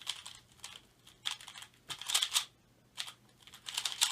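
A speedcube being turned at full solving speed: bursts of rapid plastic clicking turns separated by brief pauses.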